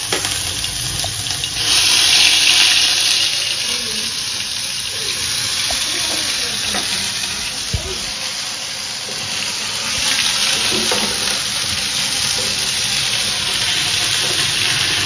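Food frying in hot oil in a pan: a steady sizzle, louder for a second or so about two seconds in, with a short low knock about eight seconds in.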